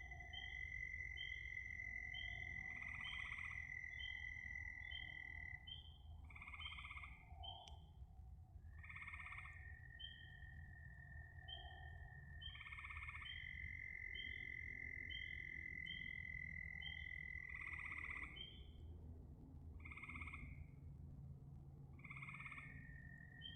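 A chorus of frogs calling: short high chirps about two a second over a steady high trill, with a louder, lower call every few seconds. A low steady rumble sits underneath.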